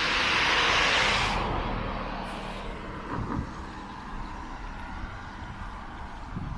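A car passing on the road: its tyre and engine noise is loudest in the first second and a half, then fades away as it drives off.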